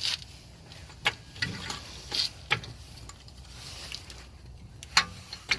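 Scattered sharp metallic clicks and knocks from car suspension parts being turned and handled, the loudest about five seconds in.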